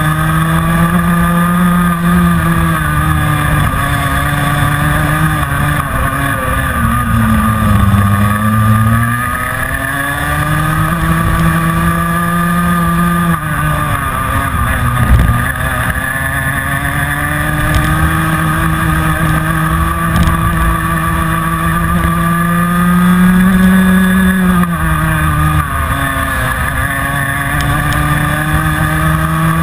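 Rotax Mini Max 125cc two-stroke kart engine at racing speed, heard from on board. Its pitch sinks as the driver lifts into corners and climbs again on the throttle, three times.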